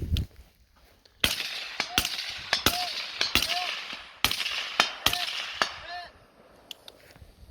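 A string of about eight gunshots over five seconds, several followed by the short ring of steel targets being hit.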